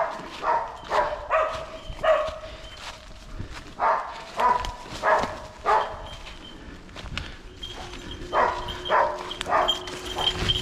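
Hunting hound barking repeatedly: short, sharp barks in quick runs about half a second apart, with a pause of a couple of seconds midway before the barking resumes.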